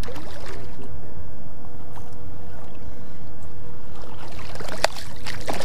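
Wind buffeting the microphone in a low steady rumble over shallow water, with a sharp knock about five seconds in.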